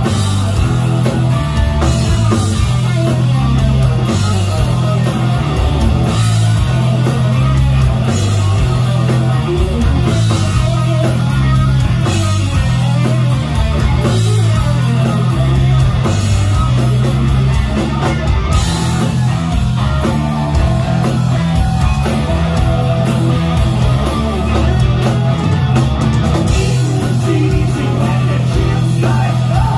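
Hard rock band playing live at full volume in an instrumental stretch without vocals: electric guitars, bass guitar and a drum kit with steady cymbal hits.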